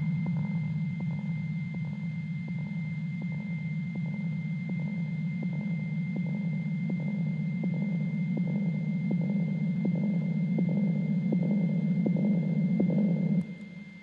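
Low steady droning hum with a thin high tone held above it and a regular ticking pulse a little under three times a second; it cuts off suddenly near the end.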